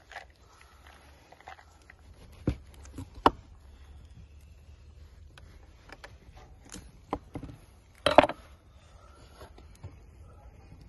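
A few scattered knocks and light scrapes of a kitchen knife cutting a block of cheese down onto a wooden cutting board. The loudest knock comes a little after eight seconds in.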